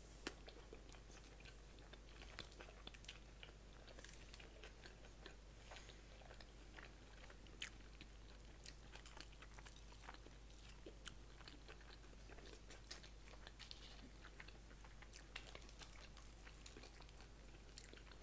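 Quiet chewing of pizza close to the microphone, with scattered small clicks of mouth and bites.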